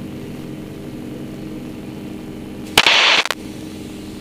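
Yak-52's nine-cylinder M-14P radial engine running steadily at takeoff power during the climb-out, heard from inside the cockpit. About three seconds in, a brief loud burst of noise cuts across it for half a second.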